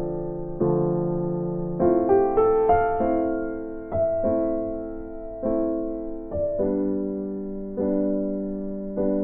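Background music: soft electric piano chords, each struck and left to fade, about one a second.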